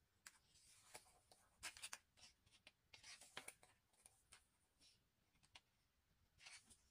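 Faint rustling and crinkling of a photobook's paper pages as they are handled and a page is turned by hand, in a few short bursts.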